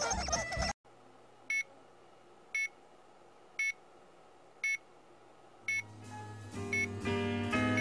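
Computer beeping: five short electronic beeps about a second apart, set off by the kitten lying on the keyboard keys. Cartoon music plays briefly at the start and fades back in near the end.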